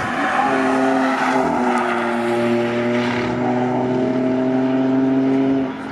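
BMW 3 Series coupé engine under load as the car drives through the corner and away, a steady multi-tone engine note held at nearly constant revs, which drops off sharply near the end.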